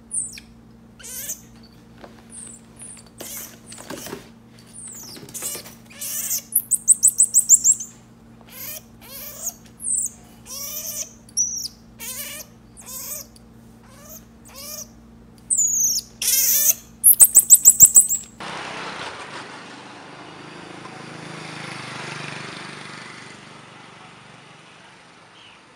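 Baby marmoset giving a run of very high-pitched chirps and short squeaks, with two loud rapid trills about 7 and 17 seconds in, over a low steady hum. About 18 seconds in, the calls stop and a steady hiss of background noise takes over.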